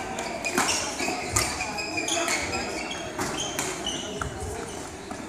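Badminton play in an echoing sports hall: scattered rackets striking shuttlecocks and sneakers squeaking on the court floor, over background chatter.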